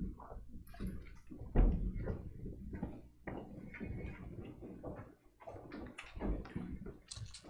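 Irregular footsteps, shuffling and knocks as a group of choir members leave the choir loft, with a loud thump about a second and a half in.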